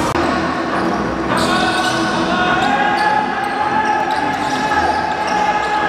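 A basketball bounced on a hardwood arena court, a few sharp bounces over a steady background of held tones and voices.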